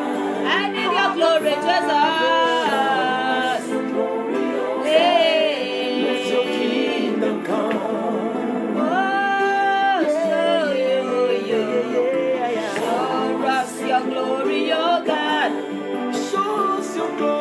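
Gospel worship song: singing with long held notes that waver in pitch, over steady musical accompaniment.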